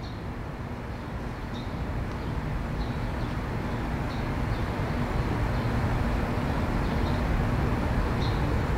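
Low mechanical rumble, slowly growing louder, with faint short high chirps now and then.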